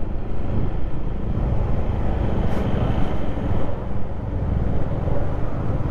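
Steady low rumble of a motorcycle ride: engine and road noise mixed with wind on the microphone.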